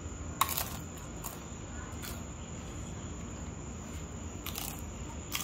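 Mouth crunching a crisp fried taquito: several sharp crunches spaced through, the loudest about half a second in and a small cluster near the end.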